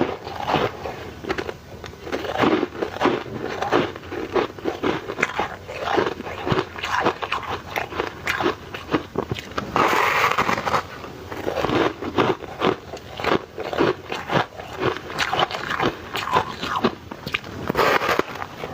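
A person biting and chewing ice, a steady run of crisp crunches with a louder burst of crunching about halfway through.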